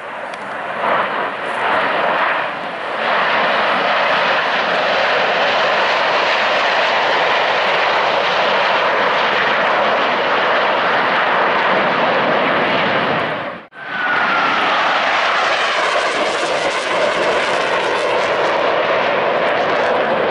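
Four Blue Angels F/A-18 Super Hornet jets flying over low in diamond formation: a loud, steady jet roar that swells in the first few seconds. About two-thirds of the way through, the sound cuts out for an instant. A falling whine follows as the jets pass.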